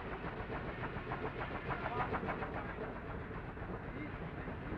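Steam-powered mill machinery running steadily, with a rapid rhythmic clatter about two seconds in.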